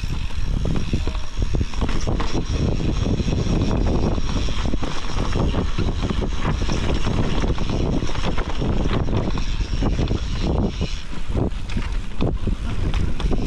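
Mountain bike riding down a dirt trail: tyres rolling over dirt and roots with many short knocks and rattles, and wind on the microphone.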